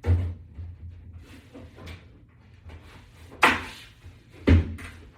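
Knocks and bumps of a wall mount's mounting-board sections being handled and set in place, three sharp ones standing out: one at the start, the loudest about three and a half seconds in, and another about a second later.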